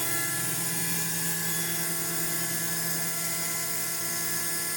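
Alup Combi GE 15 11 kW rotary screw air compressor running steadily just after start-up, pumping up pressure from empty. It makes a steady, even hum made of several constant tones.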